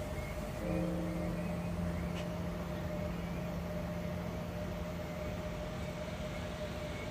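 Steady low background rumble with a constant thin hum. A deeper drone joins about a second in and fades out after about five seconds.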